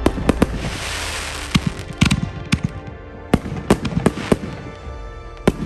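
Consumer aerial fireworks bursting overhead: about a dozen sharp bangs spread over five seconds, with a crackling hiss after the first few.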